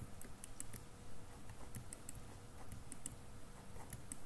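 Faint, irregular clicks and taps of a computer keyboard and mouse, a few light ticks each second.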